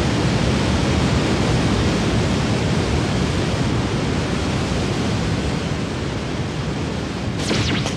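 Animated sound effect of a rushing whirlwind: a loud, steady rush of wind that starts abruptly and eases slightly over the seconds, with a brief whoosh near the end.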